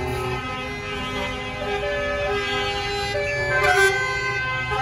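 Truck air horns sounding a run of long, steady notes that step between pitches, over a diesel engine running, with a brief louder rush of noise a little before the end.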